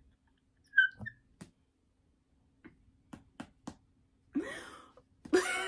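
A few light clicks and knocks as a tall stack of paperback books is handled, then a woman's breathy sigh and a short groaning vocal sound near the end.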